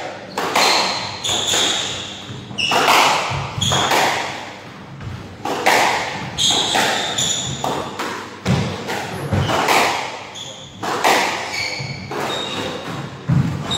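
Squash rally: the ball cracks off rackets and the court walls about once a second, each hit echoing around the enclosed court, with short sneaker squeaks on the wooden floor between shots.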